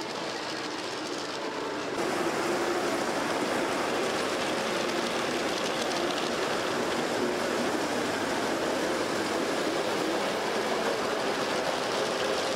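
G-scale model train running along its track: a steady rolling rattle of wheels on the rails, getting louder about two seconds in.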